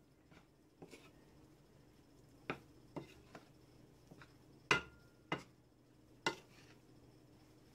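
Metal fork tapping and knocking against a ceramic mixing bowl while flour and water are worked into dumpling dough: about seven irregular sharp clicks, the loudest about two-thirds of the way in with a brief ring of the bowl.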